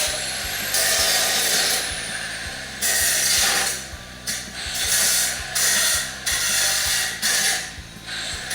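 A machine running, with bursts of high hissing that start and stop every second or so over a steady hum and a regular clicking about twice a second.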